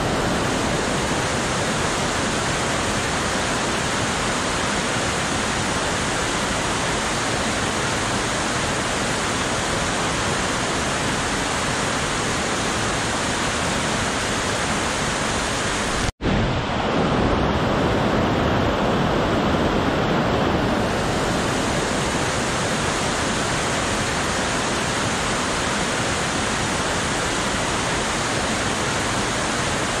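Fast mountain stream rushing over rocks: a steady, full rush of white water. About halfway through, the sound cuts out for an instant and comes straight back.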